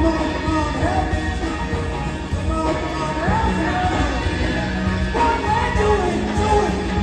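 Rock song with a voice singing over a steady beat.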